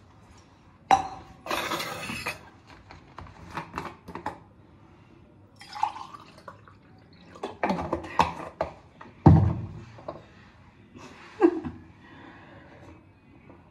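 Water poured from a plastic bottle into a steel tumbler, with clinks and knocks as the tumbler and bottle are handled. There is a heavy thud about nine seconds in.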